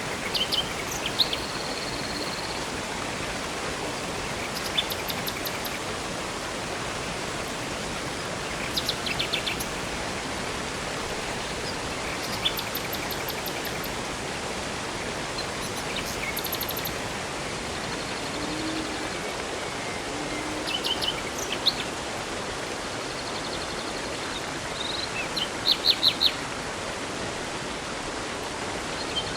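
Steady rush of a river and waterfall, with birds singing now and then over it: short chirps, a held whistled note near the start, and quick rapid trills every few seconds, the loudest burst of sharp notes near the end.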